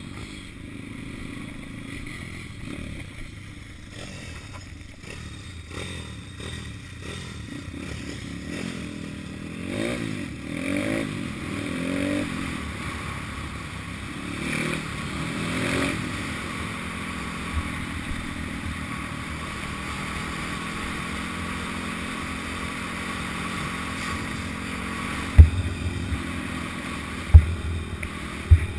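Pit bike's small single-cylinder engine running under way, heard from the rider's helmet camera, its pitch rising and falling as it revs up and down through the middle stretch. Near the end come three sharp thumps, the loudest sounds.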